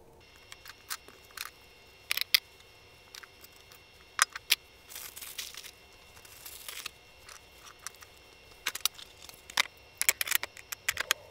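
Scattered sharp clicks and light knocks of sanding disc holders and mandrels being set into foam and a plastic toolbox organizer tray, with a couple of brief rustles about halfway through.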